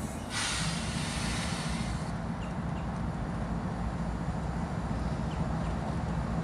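Approaching diesel freight locomotives, a GE Dash 9-44CW leading two GE ES44AC units, their engines running with a steady low rumble.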